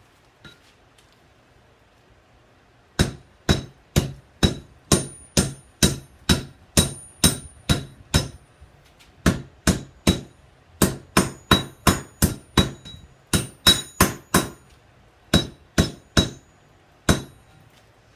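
Hand hammer striking a red-hot railroad spike on an anvil, forging an axe head's blade and beard: sharp blows at about two a second in runs broken by short pauses, each with a brief metallic ring. The blows start about three seconds in.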